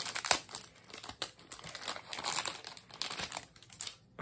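Plastic wrapping around a deck of game cards crinkling irregularly as it is handled and pulled open.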